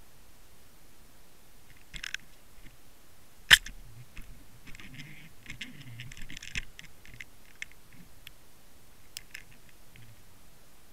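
Scattered sharp clicks and scratchy crackles from an underwater camera rig on a fishing line, over a faint steady hiss. A single sharp knock about three and a half seconds in is the loudest sound, followed by a cluster of scraping crackles over the next few seconds as the housing and line rub and knock.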